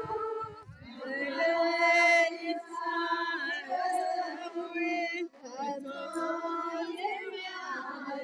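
A group of voices chanting together in long held notes, phrase after phrase, with a short break about five seconds in.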